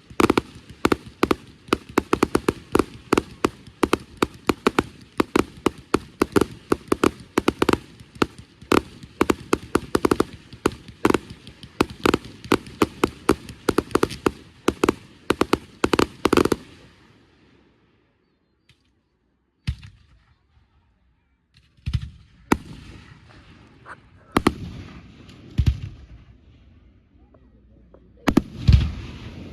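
Fireworks going off: a long rapid run of crackling bangs, several a second, that stops about sixteen seconds in, then after a short lull a few scattered single bangs.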